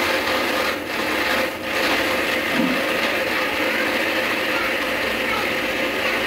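Electric mixer grinder dry-grinding oats, sugar and cashew nuts to a fine powder in its steel jar: a steady motor hum under a gritty grinding rush, dipping briefly twice near the start.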